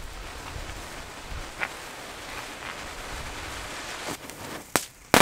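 Steady background hiss with a few faint distant firecracker pops, then a sharp crack shortly before the end and a loud firecracker bang right at the end.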